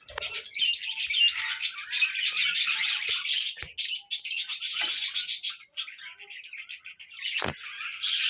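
Show budgerigars chattering and chirping in a busy, continuous stream of high warbling notes. There is a single knock near the end.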